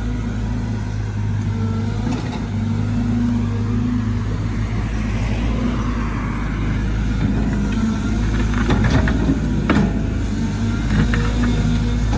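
Caterpillar 313GC hydraulic excavator running steadily as it digs, with several sharp clanks and knocks about two-thirds of the way through and again near the end.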